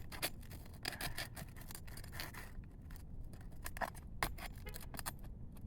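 Scraping and irregular sharp clicks of a hand tool working under a sealed asphalt shingle to get at a roofing nail stuck in the sealant.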